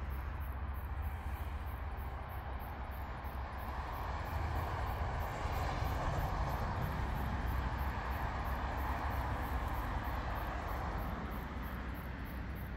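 Paper and cardboard catching and burning: a steady rushing hiss of flames that grows louder through the middle, over a low steady rumble.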